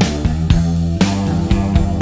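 Background rock music: guitar and bass over a steady beat of about four hits a second.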